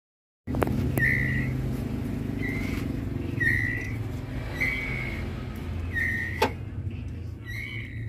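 White-rumped shama (murai batu) chicks, about eleven days old, giving short whistled calls, six of them at roughly one a second, over a steady low hum. A sharp knock comes about six and a half seconds in.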